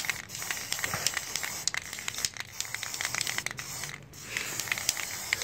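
Aerosol spray-paint can hissing as paint is sprayed onto plastic model parts, with many small crackles over the hiss. The spray breaks off briefly about four seconds in, then starts again.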